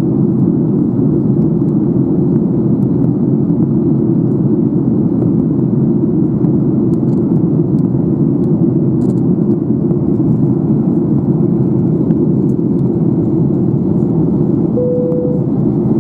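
Steady in-flight cabin noise of a Boeing 737-800 with CFM56-7B engines, a deep, even rumble of engines and airflow heard inside the passenger cabin. A brief single tone sounds near the end.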